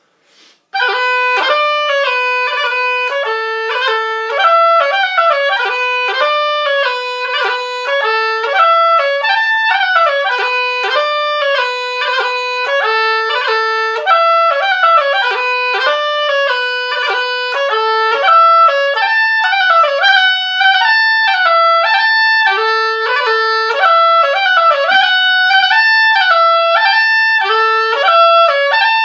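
Oboe playing a Celtic tune in imitation of bagpipes, starting about a second in and running on as one unbroken line with no pause for breath. Quick, snappy grace-note ornaments flick between the melody notes.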